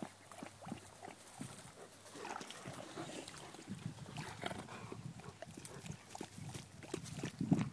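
A dog snuffling and panting close by in short, irregular breaths, with a louder low rumble near the end.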